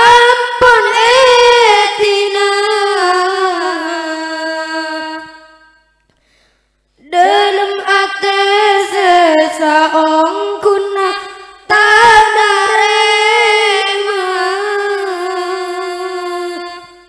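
A boy's solo voice sings a slow Madurese song a cappella through a microphone, in long, wavering, drawn-out notes. It holds three phrases, with a brief silence about six seconds in.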